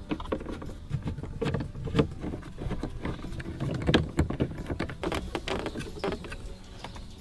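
Screws being driven by hand into a Volvo 850's plastic dash pad with a bit on an extension: irregular small clicks, ticks and plastic knocks as the bit and trim are handled.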